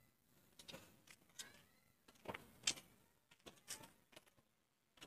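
Near silence, broken by a few faint, brief ticks about two to four seconds in.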